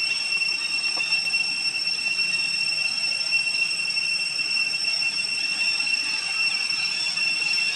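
Steady high-pitched insect drone, an unbroken whine on a couple of high pitches that holds level throughout.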